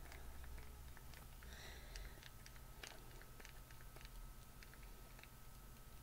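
Faint, irregular clicks from the pump of a 111SKIN Celestial Black Diamond serum tube being pressed hard again and again. The pump fails to dispense any product.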